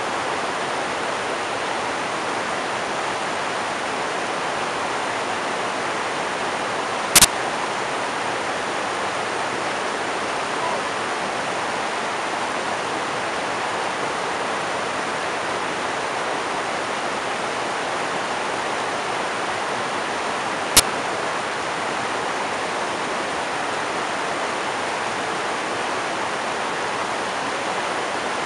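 River rapids rushing steadily over rocks and boulders. Two short sharp clicks stand out over the water, one about a quarter of the way in and another about three-quarters through.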